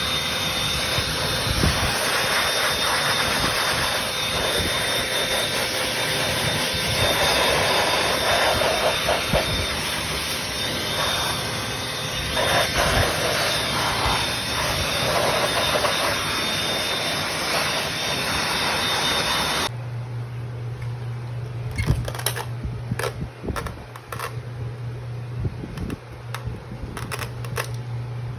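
Small motorized cleaning tool running with a steady rushing hiss of air and a faint high whine. About two-thirds of the way in it cuts off abruptly, leaving a low steady hum with scattered clicks and knocks.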